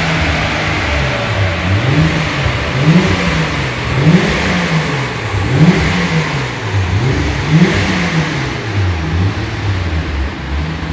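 Turbocharged Nissan RB30 straight-six in an S13 Silvia drift car, running on a chassis dyno with its revs rising and falling repeatedly, about every two seconds.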